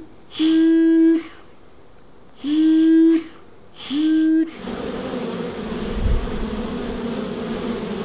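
Three puffs of a bee smoker's bellows, each a short steady tone of under a second. About four and a half seconds in, the dense, steady buzz of a mass of honey bees at a hive entrance takes over.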